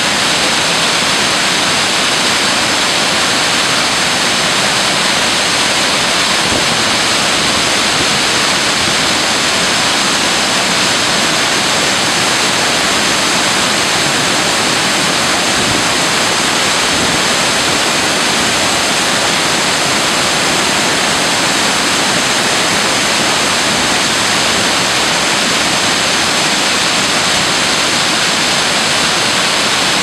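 Large waterfall pouring into a plunge pool: a loud, steady rush of falling water.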